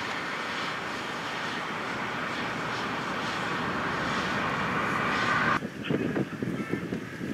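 Steady rushing wind noise, slowly growing louder. It breaks off at a cut about five and a half seconds in, and after that uneven gusts buffet the microphone.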